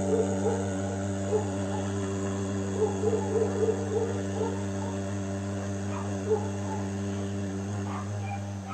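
A man's deep, sustained vocal drone from the throat, a 'hunkar' like the sound of a conch or Om, held steadily on one low pitch, with a wavering overtone above it.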